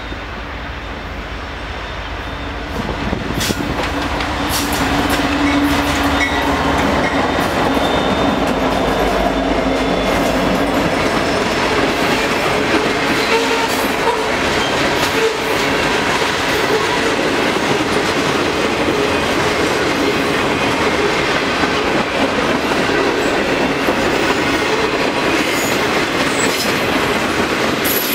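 Freight train led by a GE C44-9W and an EMD SD90MAC diesel locomotive drawing near and passing, getting louder over the first five seconds or so, then a long string of loaded freight cars (covered hoppers and tank cars) rolling steadily past with the clickety-clack of wheels over the rail joints.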